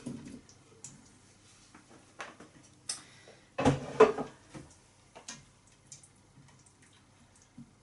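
Cut potatoes tipped from a chopping board into a pressure cooker's inner pot with a few light knocks. About halfway through comes a louder clatter of kitchen things set down on the worktop. After that, soft scrapes and ticks of a plastic spatula stirring in the pot.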